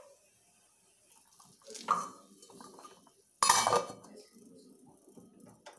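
Stainless steel lid clanking onto a steel cooking pot: a light clink about two seconds in, then a louder metallic clatter as the lid settles on the rim, and a small tap near the end.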